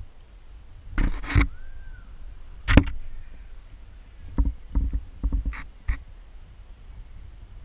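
Irregular knocks and thumps from the camera being handled as it moves over the lake bottom: two loud clattering hits in the first three seconds, then a quicker run of duller knocks about four to six seconds in.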